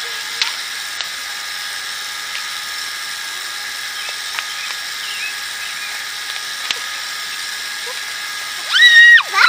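Gazillion Bubble Rush battery bubble machine running, its small fan motor giving a steady high whine with hiss. Near the end, a loud, high-pitched squeal twice in quick succession drowns it out.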